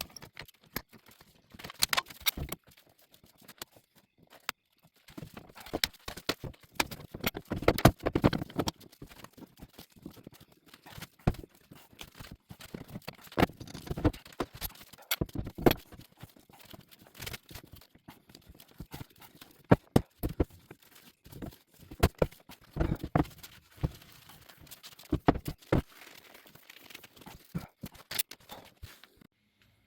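Irregular knocks and clacks of hardwood pieces being handled and set down on a bench, some sharp and loud, stopping abruptly near the end.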